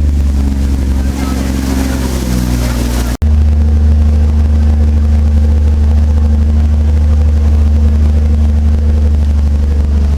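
Boat engine running with a steady low drone. It breaks off sharply about three seconds in and resumes at once, louder and steadier.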